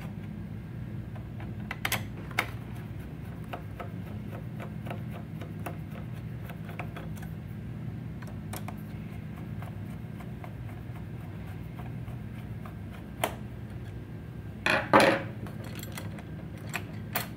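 A Phillips screwdriver turning out the screws of the stand's mounting plate on an all-in-one PC's back, with small scattered clicks and scraping of metal on plastic. About fifteen seconds in, a short cluster of louder knocks as the plate is handled; a steady low hum runs underneath.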